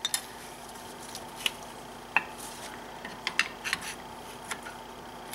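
Scattered light metallic clicks and scrapes from a screwdriver and the spring-steel brake caliper spring clip against the caliper as the clip is levered into place under tension, with a cluster of clicks about three and a half seconds in.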